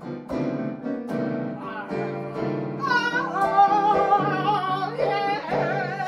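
Electronic keyboard playing repeated piano-voiced chords, with a voice singing long, wavering notes over it from about halfway through.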